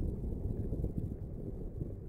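Wind buffeting the camera microphone: a low, irregular rumble that rises and falls in gusts.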